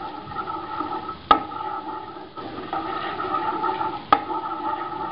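Butter melting in hot oil in a wok, sizzling steadily while a wooden spatula stirs and scrapes it. The spatula knocks sharply against the pan twice, about a second in and again near the end.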